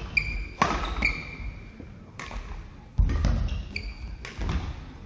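Badminton rally on an indoor court: sharp racket hits on the shuttlecock about a second apart, with short high shoe squeaks on the court floor between them.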